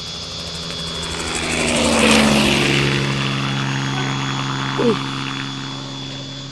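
Model King toy remote-control combat helicopter running: a steady motor-and-rotor hum with a rising and falling whoosh that peaks about two seconds in. A brief falling squeak sounds near the end.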